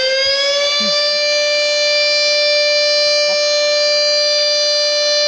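Air-raid siren sounding as a curfew signal. It rises in pitch until about a second in, then holds one steady wail.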